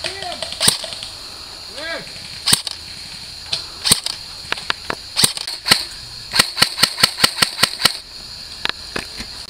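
Airsoft rifles firing in the woods: scattered single shots, then about six and a half seconds in, a quick burst of about nine shots in just over a second.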